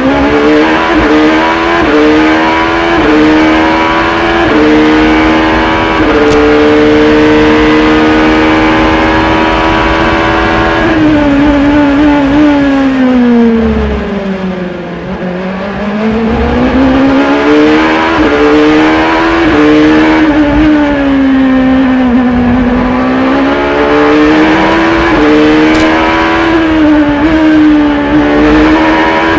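Acura LMP2 prototype's V8 race engine heard from the cockpit at racing speed. It climbs in pitch through quick upshifts and holds high flat out. About halfway through, its pitch slides down as the car slows for a corner, then it accelerates hard through the gears again.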